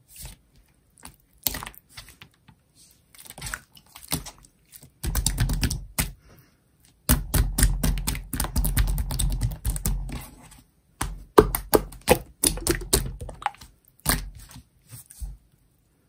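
Large clear blue slime being squeezed and pressed by hand, giving off dense runs of sharp clicking and popping. The sound comes in bursts with short pauses, the longest and loudest runs about five seconds in and from about seven to ten seconds in.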